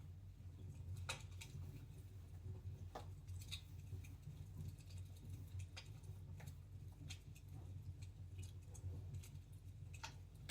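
Wood fire in a fireplace crackling faintly, with scattered sharp pops a second or two apart over a low steady rumble.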